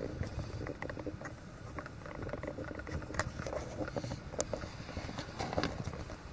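Irregular light clicks and rustling over a low rumble, with no steady engine rhythm: handling noise from a handheld camera being moved about.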